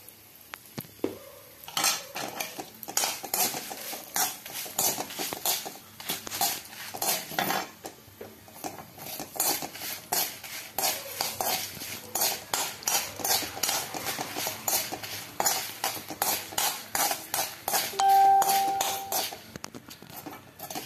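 Slotted steel spatula scraping and knocking against a pan in quick, irregular strokes, stirring dried red chillies and fenugreek seeds frying in oil. The strokes start about two seconds in. Near the end there is a brief steady tone lasting about a second.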